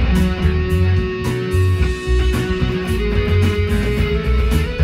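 Fender Stratocaster electric guitar improvising a Mixolydian lead line, with a long held note that steps up in pitch about three seconds in.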